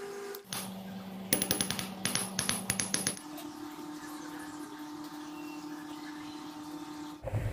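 Small electric motor of a metal model motorcycle whirring at a steady pitch that jumps down and later up abruptly. From about a second in, a couple of seconds of rapid metallic clicking and rattling. A louder rumble starts right at the end.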